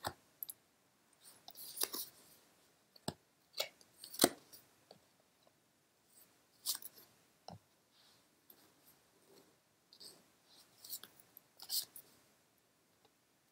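Tarot cards being drawn and laid down on a cloth-covered table: irregular faint flicks, slides and soft taps of card stock, with quiet gaps between them.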